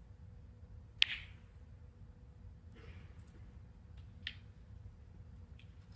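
Snooker cue tip striking the cue ball with one sharp click about a second in, followed by a few quieter clicks of balls knocking against each other and the cushions.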